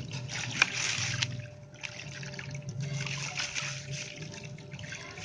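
Dried sand-cement concrete crumbling with a crunchy, gritty sound and sharp little cracks, easing off briefly about a second and a half in.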